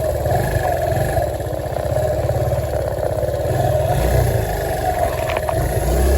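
Suzuki Marauder 125's single-cylinder four-stroke engine running, presumably on the newly fitted battery. There are a couple of light clicks about five seconds in.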